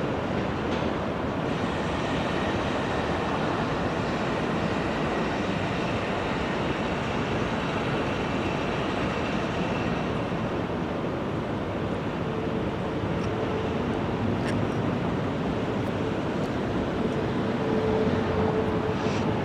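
Norfolk Southern intermodal freight train rolling past: steady rumble and clatter of wheels on rail, with a faint steady tone coming in partway through.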